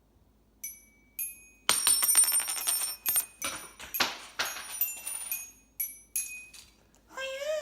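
Bell-like chime notes: two single ringing strikes, then a quick run of struck, ringing notes, and near the end a wavering held note.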